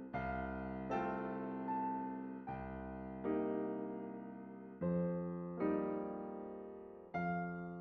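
Background music: a slow piano or electric-piano piece, its chords struck about once every second and left to fade.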